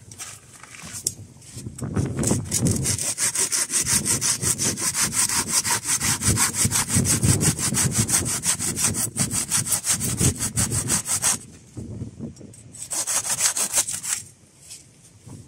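Silky Gomboy folding pruning saw cutting into a birch pole: a long run of rapid, even back-and-forth strokes, a brief pause, then a shorter run of strokes near the end.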